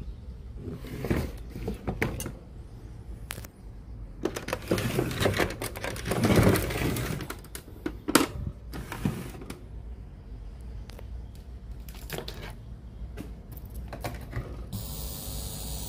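Clicks, knocks and rattles of a Sony CFS-1145S cassette radio being handled and its controls worked, busiest in the middle. A steady hiss comes in near the end.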